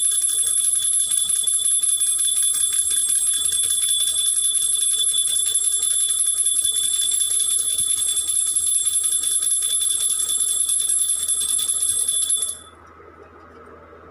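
Small brass puja hand bell rung rapidly and without pause during the lamp aarti, a steady high ringing that stops abruptly about twelve and a half seconds in.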